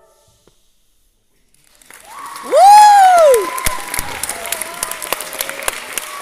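Audience applause breaking out after about two seconds of near silence at the end of a choir song. A loud whoop from someone in the crowd, its pitch rising and then falling, is the loudest sound; clapping and cheering carry on after it.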